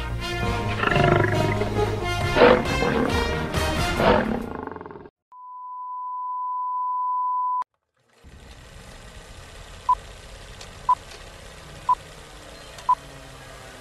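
Dramatic music, then a steady electronic tone held for about two seconds that cuts off abruptly. After a short silence, short high beeps come once a second over a low hiss.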